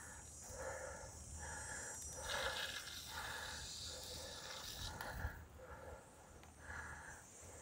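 A cyclist breathing hard and fast, about one breath every second or a little less, winded from climbing a hill on the bike.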